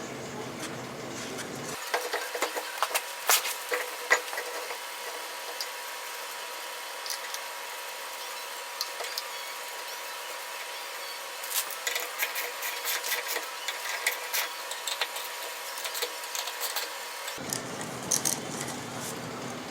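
Scattered metallic clicks, clinks and scrapes of hand work on the wheels and front-end parts, in uneven bursts. A faint steady high tone lies under most of it.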